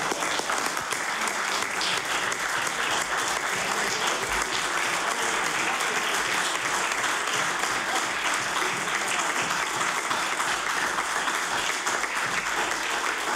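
Members of a legislative assembly applauding: a steady, dense clapping that holds at an even level.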